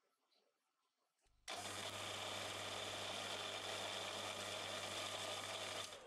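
A small electric motor switches on about a second in and runs steadily with a low hum and a dense whir, then is switched off near the end and winds down.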